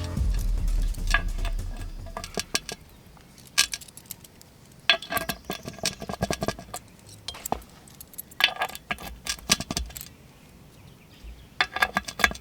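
Light metallic clinking and rattling in several short bursts with pauses between them, from small metal railing hardware being handled and fitted.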